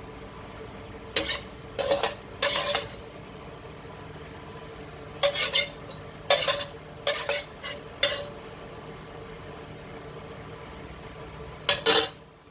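A metal utensil clinking and scraping against a pan or dish in short irregular clusters, about a dozen strikes, over a faint steady hum.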